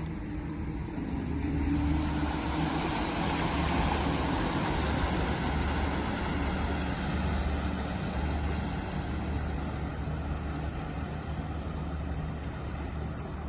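Water surging and splashing around a small electric delivery van's wheels and body as it drives through a wading trough. The noise builds a couple of seconds in and eases as the van moves away, over a steady low rumble.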